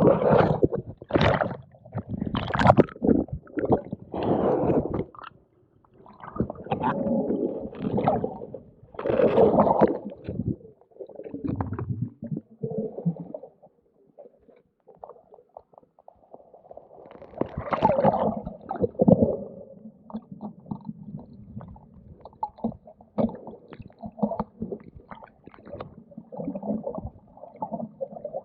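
Muffled gurgling and bubbling of water heard underwater, coming in irregular surges with scattered small clicks.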